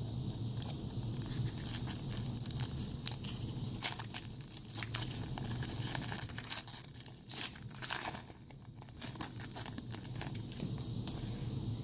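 A trading card pack's wrapper being torn open and crinkled, with irregular crackling and rustling and a few sharper rips, about four and eight seconds in.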